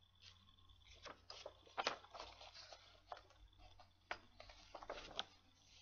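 Faint, scattered rustles and soft taps of magazine paper being handled and turned while thread is hand-sewn through a folded paper guard, the loudest rustle about two seconds in.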